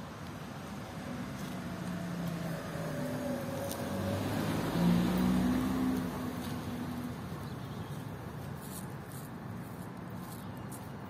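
A motor vehicle passing on the street. Its engine and tyre noise build to a peak about five seconds in and then fade, with the engine's pitch falling as it goes by.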